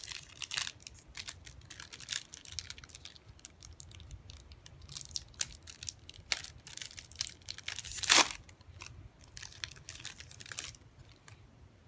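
Crinkling, rustling and tearing of Yu-Gi-Oh booster pack wrappers and cards being handled, in irregular crackles with a louder crackle about eight seconds in.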